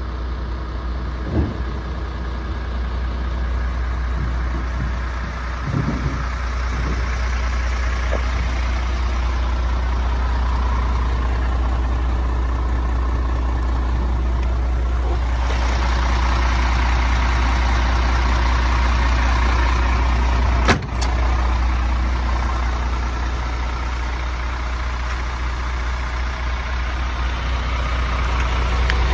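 MAN TGX 18.470 tractor unit's 12.4-litre straight-six diesel idling steadily, with a few light knocks and one sharp click about two-thirds of the way through.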